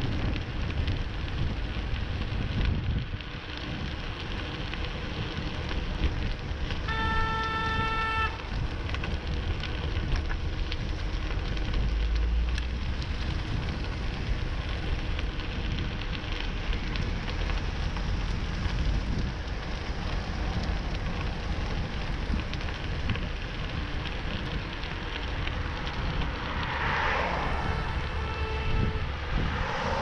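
Wind rushing over a bike-mounted action camera's microphone while riding, with road noise under it. A car horn sounds once, held for about a second and a half, about a quarter of the way in, and a fainter honk comes near the end: a driver in the backed-up traffic honking repeatedly in annoyance.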